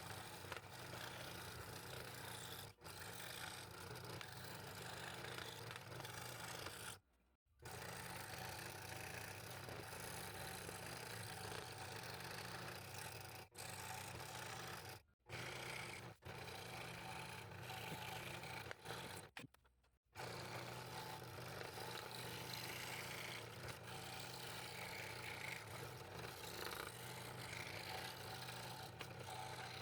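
Scroll saw running with its blade cutting through thin wood: a steady motor hum under a fast reciprocating scrape. It breaks off abruptly a few times.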